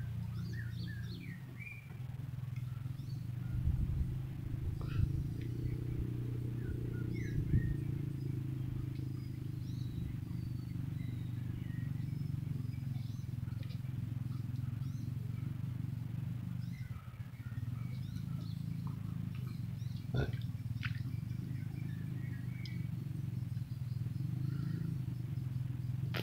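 Birds chirping in short scattered calls over a steady low engine drone, with a few soft knocks and one sharp click.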